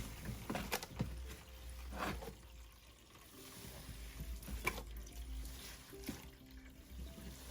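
Water trickling and wet laundry being handled at a portable twin-tub washing machine as it is drained and the clothes are moved to the spinner, with a few light knocks.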